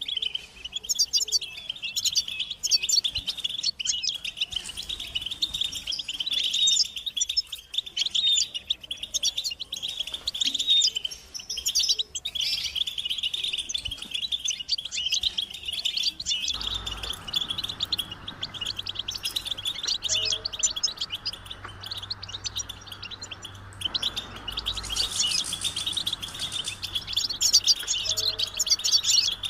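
A group of European goldfinches twittering and singing in fast, continuous chatter. About halfway through, a low hum and a faint hiss come in underneath the birds.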